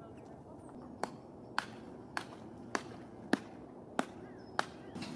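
A series of seven sharp knocks at a steady pace, a little over half a second apart, starting about a second in, over a low steady background.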